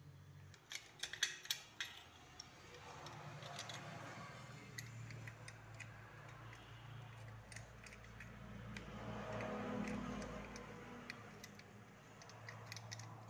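Small metal clicks and clinks from a chainsaw muffler and its steel bracket plate being handled and fitted, with a cluster of sharper clicks about a second in, over a low steady hum.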